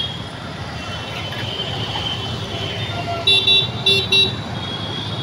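Road traffic running at a busy junction, with a vehicle horn giving three short toots about three to four seconds in. A faint steady high-pitched tone runs underneath.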